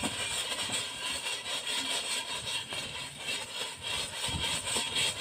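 Homemade fish-feed pellets roasting in a frying pan over an open wood fire: a steady crackling hiss from the fire and the hot pan.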